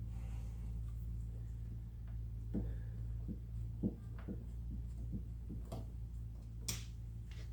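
Scattered light clicks and taps, about seven over several seconds, the sharpest near the end, as small parts and a hand tool are handled at the fuel door, over a steady low hum.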